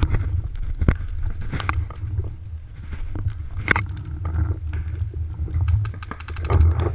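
Paintball markers firing: scattered single pops and then, about six seconds in, a quick string of roughly ten shots in well under a second, over a steady low rumble.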